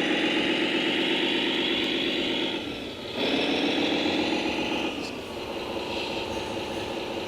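Radio-controlled scale truck or construction machine running, a steady pitched motor sound that rises slightly in pitch, cuts out briefly about three seconds in, starts again and settles lower and quieter after about five seconds.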